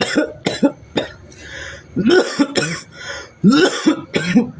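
A person coughing in loud, harsh fits. There is a quick run of three or four coughs at the start and a single cough about a second in, then longer bouts of several coughs about two seconds in and again about three and a half seconds in.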